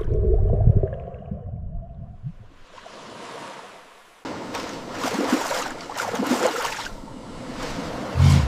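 Rushing water and waves: a deep rumble over the first two seconds, then, after a sudden change about four seconds in, a hissing wash that surges several times, with a low thump near the end.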